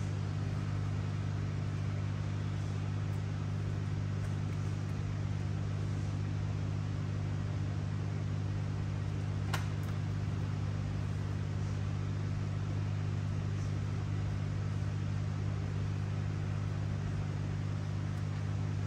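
Steady low electrical or machine hum at an even level, with one faint sharp click about halfway through.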